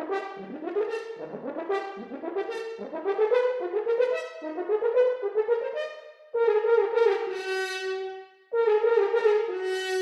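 A solo horn playing a phrase of short notes that each slide up into pitch, then two long held notes with a brief break between them a little after the middle.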